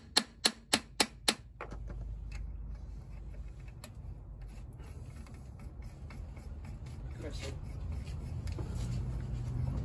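Quick light hammer taps on a seal-installer tool set against a Unimog's front hub, about four a second, seating the tool's disc before it presses the new hub seal in. The taps stop about a second and a half in, leaving a faint low hum.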